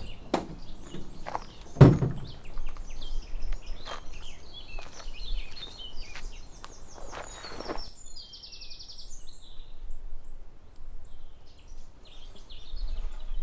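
Birds chirping and singing in woodland, with several sharp knocks and one heavy thump about two seconds in, and a fast trill a little past the middle.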